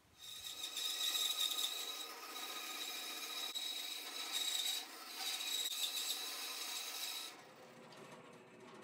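Bandsaw cutting through a wooden clamp jaw: a loud rasping whine that dips briefly about five seconds in. About seven seconds in the cut ends and the saw runs on more quietly without cutting.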